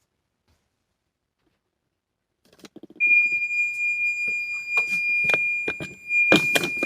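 Kitchen timer going off: one steady high-pitched beep that starts about three seconds in and holds for about four seconds. Scattered knocks and clatter of handling sound alongside it.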